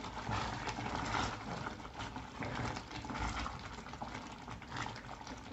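Tomato sauce with sliced sausages simmering in a saucepan while a spoon stirs it, a quiet, busy patter of small ticks from the bubbling sauce and the spoon moving through it.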